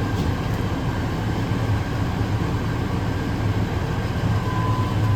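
Fire engine's diesel engine running with a steady low drone.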